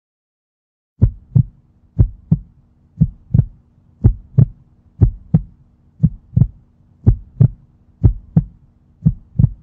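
Heartbeat sound effect: paired lub-dub thumps about once a second, starting about a second in.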